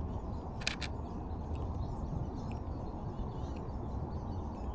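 Canon EOS RP camera shutter firing once, a quick double click, under a second in, over a steady low outdoor rumble.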